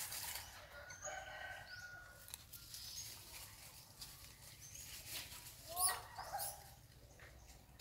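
Animal calls: a drawn-out call about a second in, and a short upward-gliding call, the loudest sound, near six seconds in.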